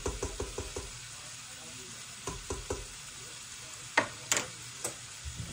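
Metal ladle stirring soup in a stainless steel pot, knocking against the pot about six times a second for the first second, then three slower strokes. Around four seconds in, two or three sharp metal clanks follow, the loudest sounds here.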